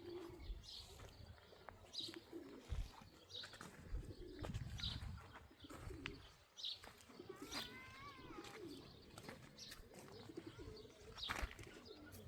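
Birds calling: low, repeated cooing all through, with a higher wavering call about eight seconds in and a few light knocks.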